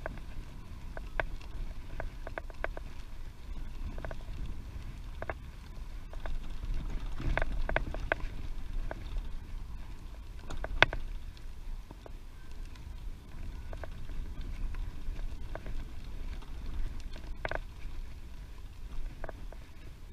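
Wind buffeting the microphone during a bicycle ride, a steady low rumble, with scattered sharp clicks and knocks; the loudest click comes about eleven seconds in.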